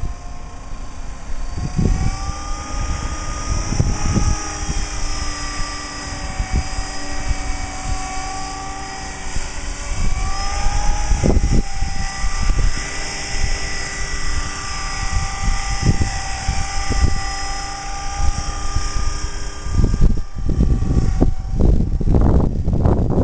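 Electric 500-size RC helicopter (CopterX CX-500 SE) in flight: a steady whine from the motor and rotor blades that wavers slightly in pitch, with heavy wind buffeting the microphone. Near the end the whine fades out and only the wind rumble is left.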